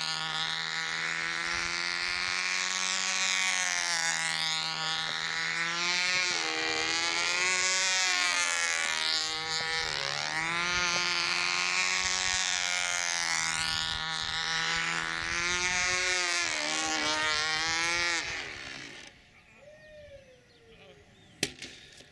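Ringmaster control-line model airplane's small engine running at full speed, its pitch rising and falling in slow waves as the plane circles and loops. About 18 seconds in the engine cuts out mid-loop, and near the end a single sharp knock follows as the plane hits the ground.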